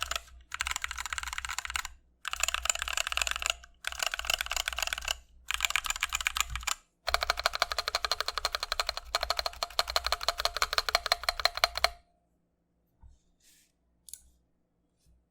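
Fast typing on a mechanical keyboard with stock, unlubed Novelkeys Cream linear switches: rapid runs of keystrokes in bursts with brief pauses between them. The typing stops about twelve seconds in, leaving only a few faint clicks.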